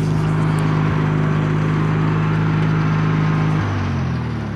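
A vehicle's engine running steadily close by. About three and a half seconds in, its pitch drops and keeps falling, as the engine slows.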